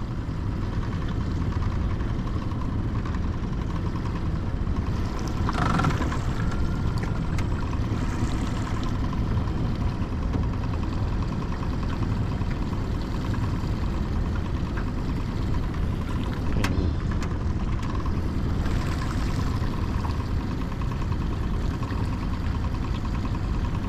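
Small boat's outboard motor idling in neutral, a steady low hum, with a couple of brief light knocks.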